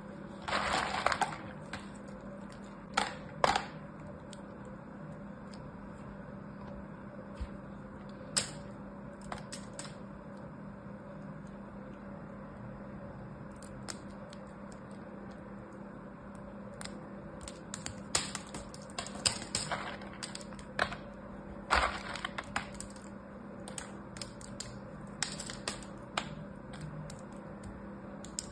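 Dried soap shavings snapped and crumbled between fingers: crisp crackles and clicks, scattered singly and in dense runs near the start and again past the middle, over a faint steady hum.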